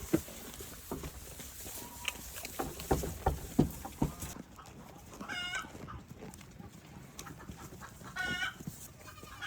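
A farm animal gives two short, pitched, wavering calls, about three seconds apart, after a run of short knocks and thumps.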